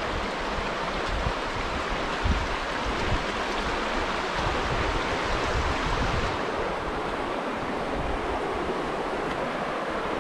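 River Wye rushing and burbling over rocks in a shallow, fast stretch: a steady rush of moving water, with a few low thuds in the first few seconds. The sound grows a little duller about six seconds in.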